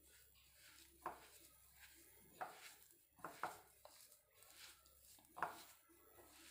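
A hand kneading desiccated coconut with condensed milk and butter in a glass bowl. Faint rustling is broken by several sharp clicks as the fingers knock against the glass.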